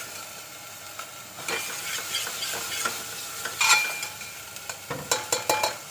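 Onion-garlic paste with chilli frying and sizzling in oil in a stainless steel pressure cooker, while a steel ladle stirs it and scrapes against the pot. The loudest scrape comes about three and a half seconds in, and a quick run of scrapes and knocks comes near the end.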